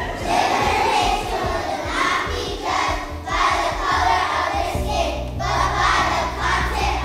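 Children's choir of young schoolchildren singing together in unison, in phrases with short breaths between them. Low steady notes come in underneath about two-thirds of the way through.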